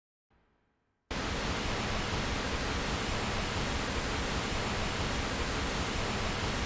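Synthesized pink noise from the Roland SC-D70 Sound Canvas's PinkNoise sound-effect preset: an even, steady hiss across all pitches that switches on suddenly about a second in.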